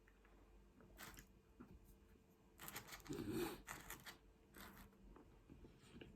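Close-up eating sounds: a few short crunching, tearing noises, the loudest a longer burst about three seconds in, between quieter chewing.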